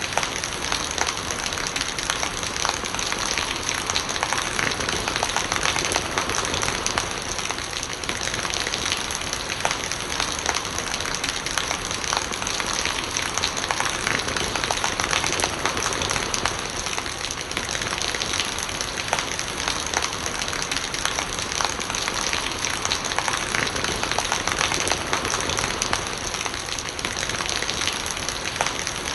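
Steady rain falling, a dense even patter of raindrops on surfaces.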